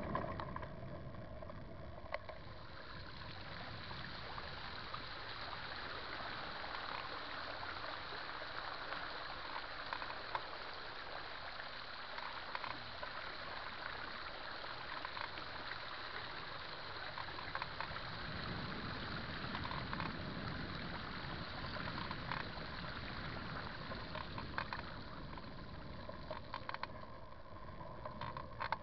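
Floodwater rushing in a swollen creek: a steady hiss that builds about two seconds in and thins out near the end, with a low rumble underneath.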